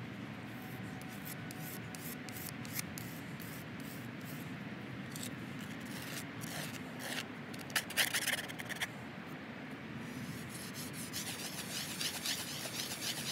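Wooden knife rubbed back and forth against a gritty cinder block wall, a run of scraping strokes as the wood is ground down smooth. There are flurries of quicker, louder strokes about eight seconds in and again near the end.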